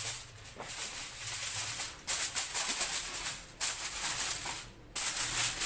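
Sheet of aluminium foil crinkling and rustling as hands spread it over a foil tray and fold it down around the edges. It comes in spells of crackling that start suddenly about two seconds in, again halfway through and near the end, with short quieter gaps between.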